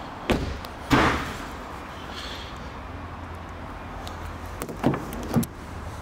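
Land Rover Evoque's doors being worked: a light knock, then a door shutting with a thud about a second in, and two more clunks near the end as the rear door's latch is released and the door swung open.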